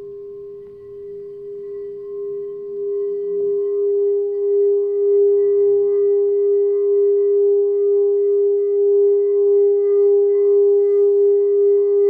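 White quartz crystal singing bowl tuned to the crown chakra, ringing with one steady tone and its overtones. It swells over the first few seconds, then holds with a slow wavering pulse.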